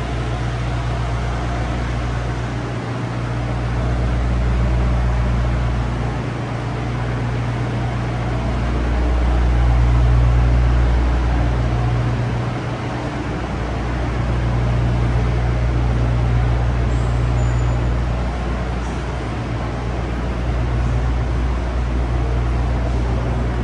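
City street traffic: a steady low engine rumble from idling and passing vehicles, swelling and easing every few seconds.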